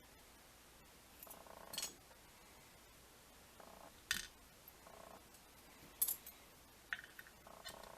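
Faint handling of small brass lock pins and tweezers: a few sharp, separate metal clicks and ticks a second or two apart as key pins are taken from the lock plug's chambers.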